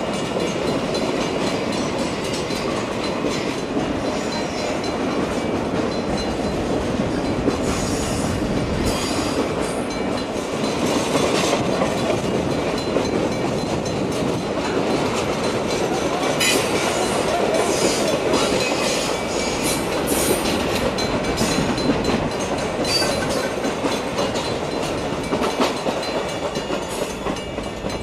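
Norfolk Southern RoadRailer train, highway truck trailers riding on rail bogies, rolling past at close range. Its wheels make a steady rumble and clatter on the rails, with scattered short high-pitched noises. It gets quieter near the end as the last trailer clears.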